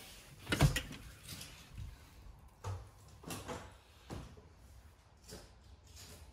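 Wooden interior door being opened by its lever handle: one sharp clunk about half a second in, followed by a few softer knocks and thumps.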